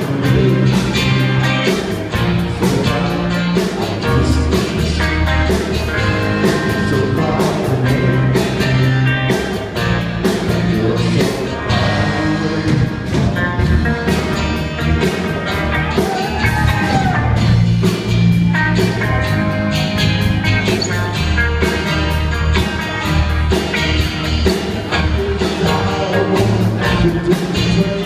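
Live rock band playing a song with a sung lead vocal over bass guitar, electric and acoustic guitars, and a steady beat.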